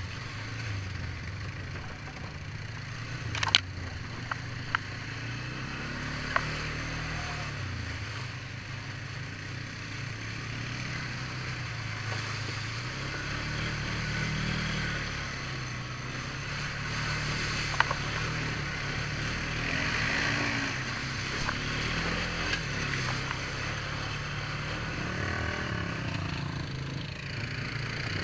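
Quad ATV engine running while riding a muddy forest trail, its pitch rising and falling with the throttle. Several sharp knocks over the engine, the loudest about three and a half seconds in.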